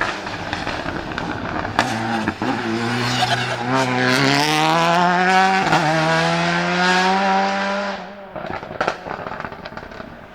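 Peugeot 308 TCR's 1.6-litre turbocharged four-cylinder race engine accelerating hard, its pitch climbing through the gears with a sharp crack at a shift about halfway. About eight seconds in it lifts off suddenly and the exhaust gives a few pops and crackles.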